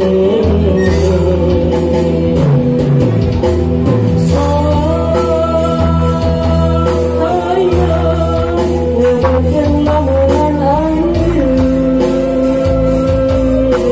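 A man singing a Sundanese song into a microphone, amplified through a PA, over backing music with a steady beat and bass; he holds long, wavering notes.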